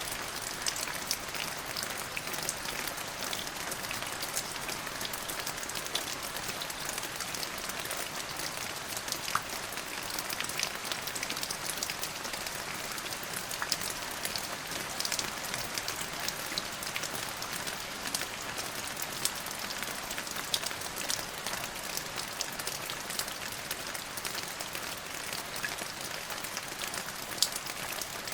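Steady rain falling, with many sharp individual drop ticks over an even hiss.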